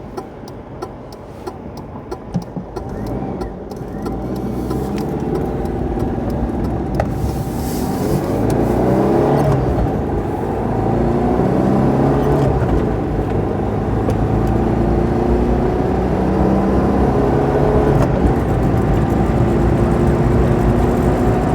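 Citroen GSA's air-cooled flat-four engine pulling the car away and accelerating through the gears, its pitch climbing and dropping back at each gear change and growing louder. The engine is running on all four cylinders again after a loose wire that was leaking spark was pulled clear.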